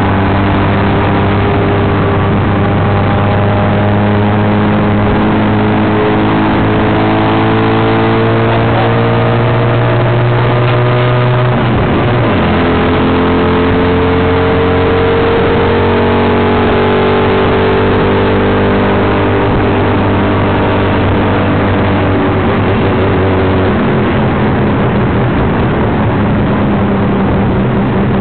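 Tuk tuk's engine running under way, heard from inside the open cab over road and wind rush. Its note climbs slowly, drops abruptly about twelve seconds in, then climbs again and levels off.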